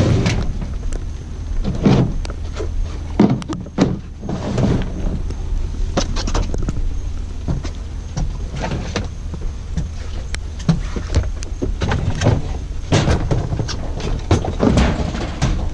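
Repeated clunks, knocks and scrapes of a lightweight shelf being pushed and shifted into a pickup truck bed against other items, over a low steady rumble.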